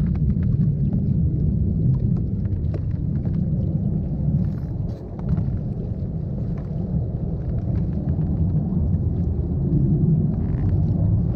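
Wind buffeting the camera's microphone on open water: a steady low rumble that dips briefly about five seconds in.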